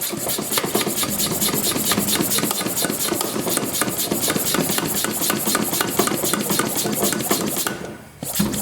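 Hand pump of a cooling-system pressure tester being worked in quick rasping strokes, about six a second, with a short pause near the end before it resumes. It is pressurising the cooling system to find where coolant is getting into a cylinder.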